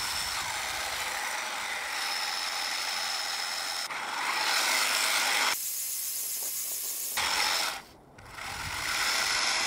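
A 3D-printed tank's brushless-motor gear drive and plastic tracks running as it is driven at speed on a 6-cell battery, with a faint high motor whine at times. The sound changes abruptly several times and drops out briefly near the end.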